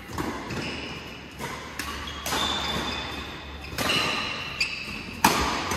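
Badminton doubles rally: a string of sharp racket hits on the shuttlecock, about seven in all, the loudest near the end, with shoes squeaking briefly on the court mat between hits.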